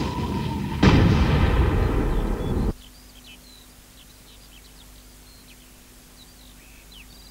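A loud explosion-like blast and rumble breaks in about a second in and cuts off suddenly a couple of seconds later. Then it is quiet apart from a low steady hum and faint bird chirps.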